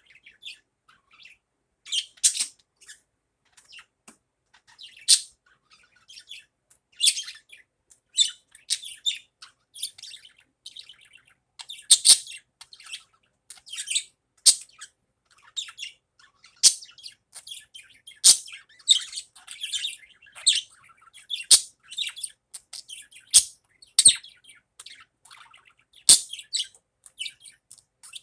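Budgerigar chirping and chattering in short, irregular high calls, with a few sharp clicks in between.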